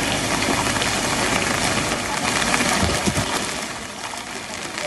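Rain falling on standing floodwater, a steady hiss that fades noticeably after about three and a half seconds.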